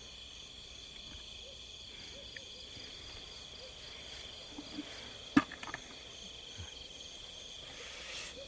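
Crickets chirping steadily in the night. About five seconds in there is a single sharp knock, just after a couple of fainter taps.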